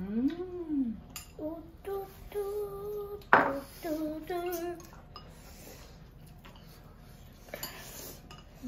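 A voice sings a short wordless tune of held and gliding notes over the first five seconds, with a sharp clink of a utensil on a dish about three and a half seconds in. After that, chopsticks and bowls clink softly, and noodles are slurped near the end.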